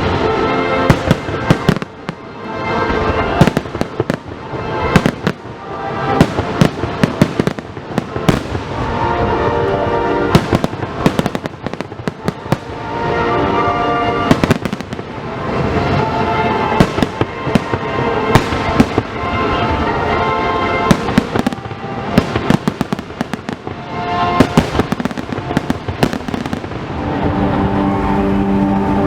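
Fireworks display: aerial shells bursting in many quick, irregular bangs, with music playing underneath.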